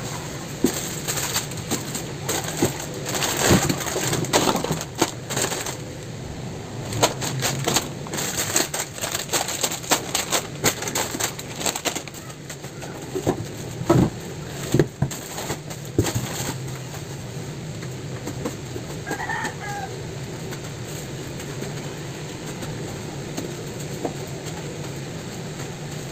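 Plastic snack packets rustling and crinkling as they are lifted out of a cardboard box, with dense crackles and bumps that die down about two-thirds of the way through. A brief chirp is heard near the end over a low steady hum.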